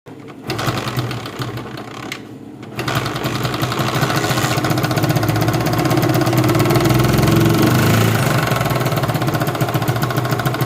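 Honda CD70's small single-cylinder four-stroke engine starting up about three seconds in and running with a rapid, uneven beat. It sounds rough and misfires and won't take revs, the sign of a timing chain that has jumped three to four teeth.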